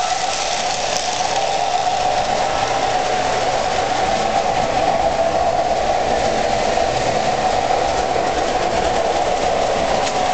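Lionel O-gauge model diesel locomotive running on Super O three-rail track, giving a steady motor whine over the rumble of its wheels on the rails.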